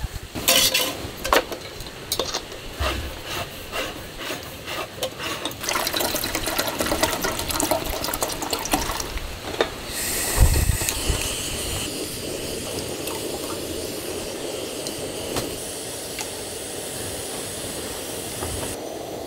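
A run of clicks and rustling handling noises, then about halfway through a Kovea Camp One Plus canister gas burner is lit under a pot and burns with a steady hiss.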